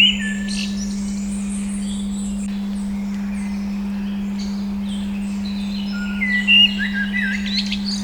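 A steady 200 Hz pure tone, with songbirds chirping and whistling over it at the start and again about six seconds in.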